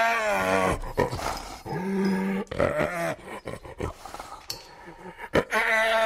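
Spotted hyena calling: several drawn-out calls with a wavering pitch, each under a second long, with a quieter stretch in the middle and another call near the end.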